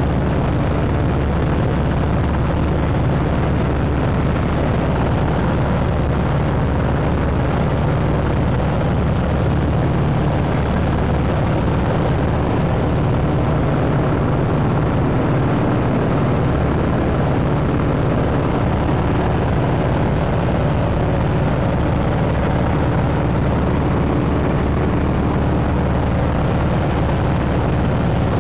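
Citabria light aircraft's piston engine and propeller running steadily in flight, heard from inside the cockpit.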